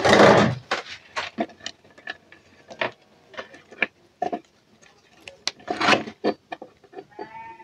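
Small clicks, taps and knocks of electronic parts and tools being handled on a wooden workbench: a lithium battery cell, wires, a USB LED lamp board and a soldering iron being picked up and set down. Near the end a cat meows briefly.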